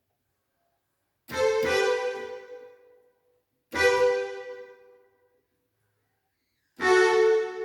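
Yamaha PSR-530 electronic keyboard playing a preset voice: three separate played sounds, about a second, three and a half and nearly seven seconds in, each dying away before the next.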